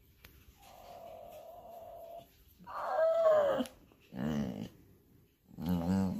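A grey American Staffordshire terrier-type dog whining and grumbling: a faint drawn-out whine, then three short moaning vocalizations with gaps between. The owner takes the grumbling for jealous sulking over another dog being petted.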